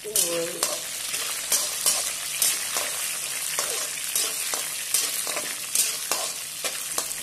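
Shallots, coconut pieces and whole spices sizzling in hot coconut oil in a wok, stirred with a steel slotted spatula. The spatula scrapes and clicks against the pan about twice a second, irregularly, over the steady sizzle.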